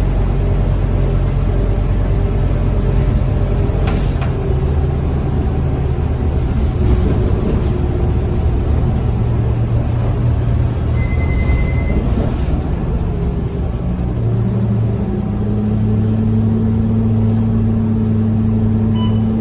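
Scania K230UB city bus's diesel engine running under way, heard from inside the passenger cabin over steady road and tyre noise on a wet road. About two-thirds of the way through, the engine note steps up and holds as the bus pulls harder. A short beep sounds just after the middle.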